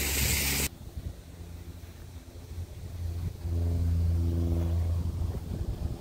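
A loud rushing hiss cuts off abruptly under a second in. It gives way to the steady hum of an engine, which grows louder from about three seconds in over a low, uneven rumble.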